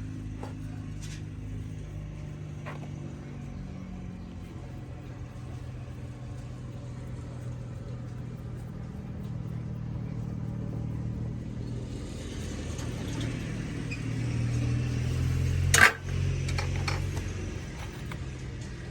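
A motor running steadily with a low hum, growing louder for a few seconds near the end, with one sharp click shortly before the end.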